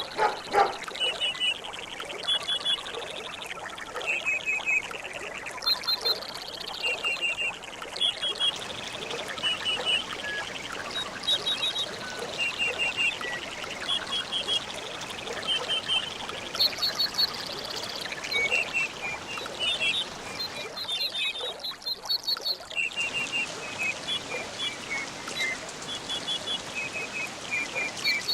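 Tropical nature ambience: many short, high bird chirps repeating in quick little groups over the steady trickle of running water.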